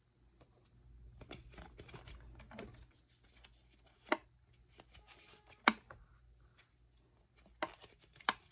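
A clear plastic bottle filled with cut-out shapes being turned in the hands. The shapes rustle and patter as they slide inside, and there are four sharp plastic clicks about four, five and a half, seven and a half and eight seconds in.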